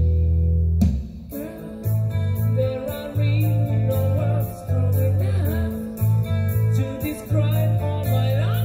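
Background music with a steady beat and a bass line; the music drops back briefly about a second in, then comes back in.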